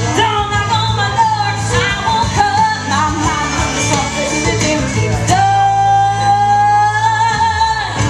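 A young woman sings a country song live into a handheld microphone over instrumental backing. A little past halfway she holds one long note for about two and a half seconds, with vibrato at its end.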